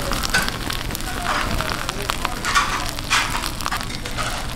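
Fish grilling over a briquette fire, sizzling steadily with scattered sharp crackles.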